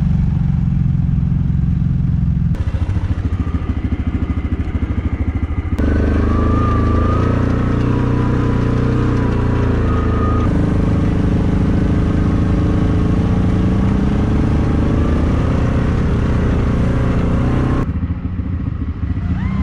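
ATV (four-wheeler) engines running under way, the sound changing abruptly several times. A higher whine wavers above the engine in the middle.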